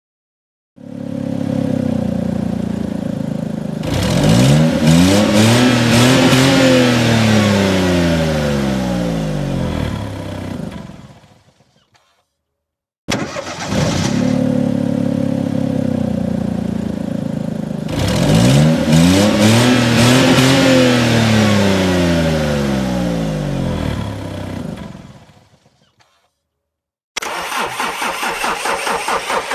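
Car engine running, then revved up in one long rise in pitch and let back down before fading out; the same passage plays twice with a short silence between. Near the end a different car engine comes in, idling with a regular throb.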